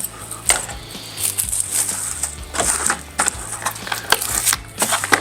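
Freshly sharpened scissors snipping through material: a string of irregular sharp cutting clicks.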